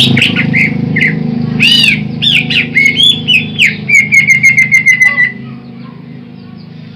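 Greater green leafbird (cucak ijo) singing loudly: varied arching whistles and chirps, then a quick run of repeated notes about four seconds in. The song stops after about five seconds, leaving a low steady hum.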